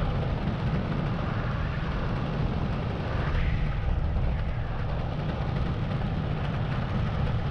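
Steady rush of wind over the microphone in paramotor flight: a low, buffeting rumble with a hiss above it.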